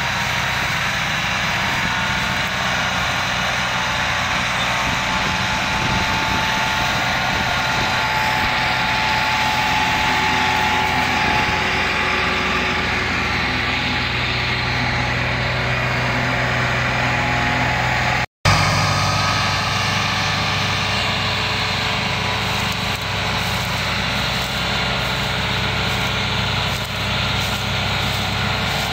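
Diesel tractor engines running steadily under heavy load as they haul an overloaded sugarcane trolley. The sound drops out briefly about two-thirds of the way through.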